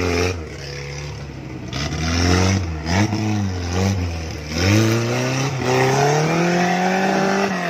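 Suzuki Jimny off-road rig's engine revving hard under load as it climbs a steep muddy slope. The revs rise and fall a few times, then jump about halfway through and keep climbing.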